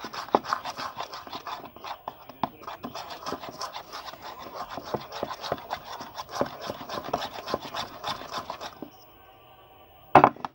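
A spoon scraping and clicking against a bowl as a glue-and-water slime mixture is stirred, for about nine seconds, then a brief loud knock near the end.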